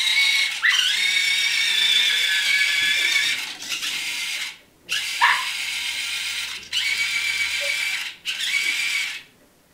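Continuous-rotation hobby servos driving a small RC car, a steady high-pitched gear-motor whine that glides up in pitch each time they start. It cuts out for about half a second before the middle, breaks briefly twice more, and stops near the end.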